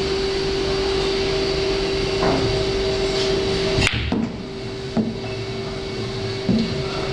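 Boccette billiard balls: a hand-rolled ball strikes another with one sharp clack about four seconds in, followed by a couple of softer knocks as the balls roll on and meet the cushions. Under it runs a steady hum.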